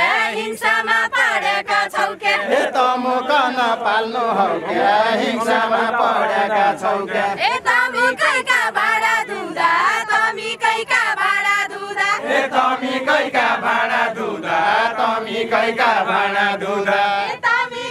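A group of young women and men singing a Nepali dohori-style folk song together in chant-like unison, over frequent short sharp strokes.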